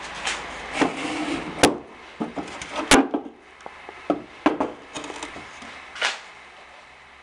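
Wooden drawer under a counter being pulled open and handled, with a scatter of knocks and clatters; the two sharpest come about a second and a half and three seconds in.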